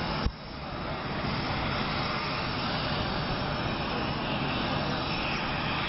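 A sharp click just after the start, then the steady, even noise of an aircraft engine running.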